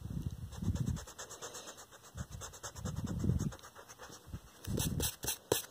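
Pencil eraser rubbed back and forth on drawing paper in several short bursts of quick scratchy strokes.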